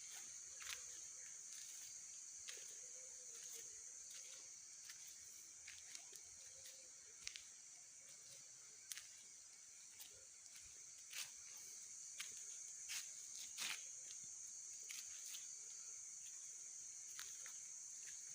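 Faint, steady high-pitched chorus of insects, with scattered small clicks and knocks from someone moving about.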